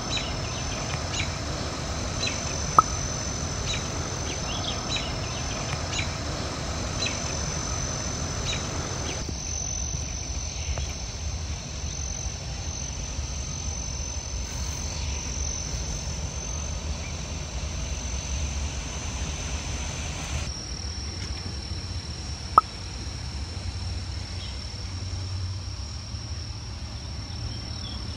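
Outdoor ambience with a steady high-pitched insect trill, and short chirps repeating about once a second for the first nine seconds or so. Two sharp clicks stand out, one about three seconds in and one about twenty-three seconds in.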